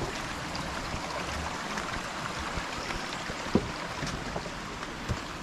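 River water rushing steadily over stones, with a few faint clicks and a single sharp knock about three and a half seconds in.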